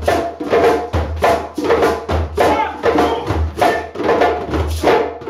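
A group of djembe drums played together in a fast, steady rhythm, with sharp slaps over deep bass tones.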